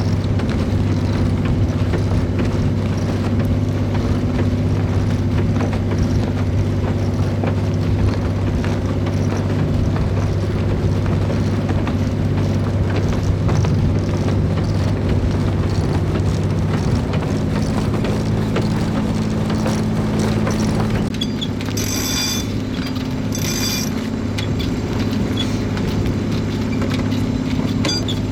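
Sailboat's engine running steadily, a low even drone whose note rises slightly a little past halfway. Two brief hisses near the end.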